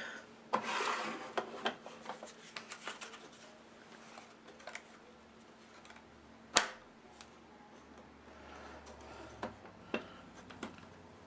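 Handling of a plastic Marvy Uchida border punch and its paper-holder track: a rustle of paper near the start, scattered light clicks, and one sharp plastic click about two thirds of the way through as the punch is set onto the track.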